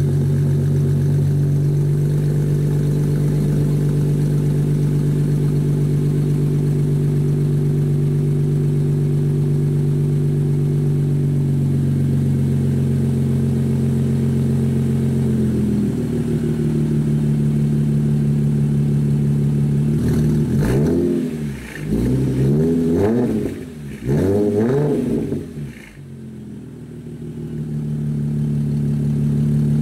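A 2010 Mercedes-Benz C300's V6 engine, running through a straight-piped exhaust with the muffler and resonator deleted. It idles steadily, then is revved in several quick throttle blips about two-thirds of the way through. After the blips the sound drops away briefly and then settles back to a steady idle.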